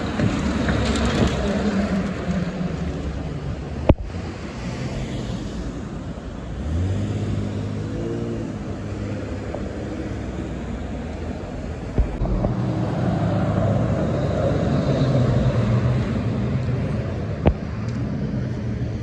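City street traffic: cars and trucks passing with engine and tyre noise. About seven seconds in, a vehicle engine rises in pitch as it accelerates away. There are a few short sharp clicks.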